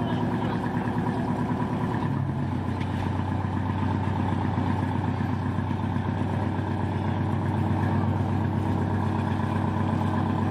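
Engines of a patrol-style motor launch running at low speed while it manoeuvres. The note shifts about two seconds in and then holds steady.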